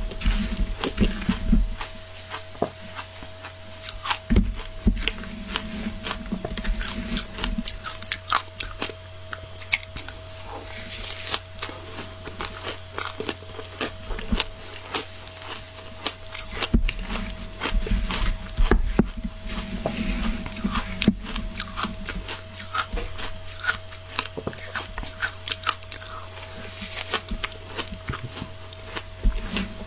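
Close crunching and chewing of matcha-coated shaved ice, with stretches of a metal spoon scraping and scooping through the ice in a plastic tub. A faint steady hum runs underneath.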